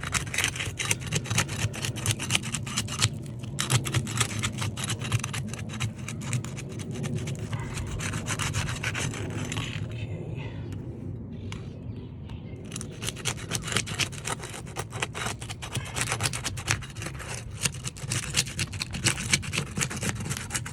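Flat pry bar working under asphalt roof shingle tabs, tearing them loose from their seal strips with dense, rapid scraping and crackling that pauses for a couple of seconds about ten seconds in, then resumes. A steady low rumble runs underneath.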